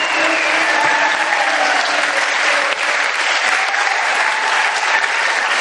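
Audience applauding steadily, a dense clapping from many hands.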